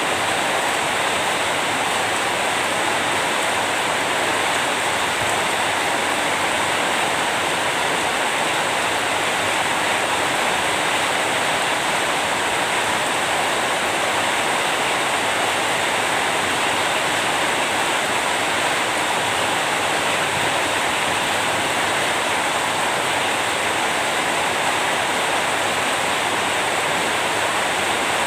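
Steady rain falling: an even, unbroken hiss that holds the same level throughout.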